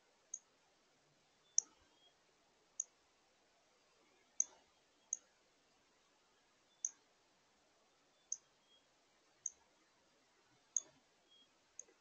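Northern cardinal giving sharp, high chip calls, about ten short chips at uneven intervals of roughly a second, with fainter lower notes between them.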